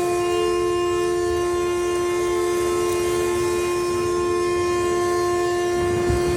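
Outdoor tornado warning siren sounding a steady, unbroken chord of several tones, one of them pulsing, with a brief low rumble near the end.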